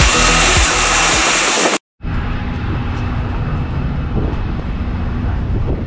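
Airbus A320 airliner taxiing, its jet engines running steadily with a thin whine over a dense rumble, cut off abruptly just under two seconds in. After a brief gap comes a quieter, steady rumble beside an apron bus.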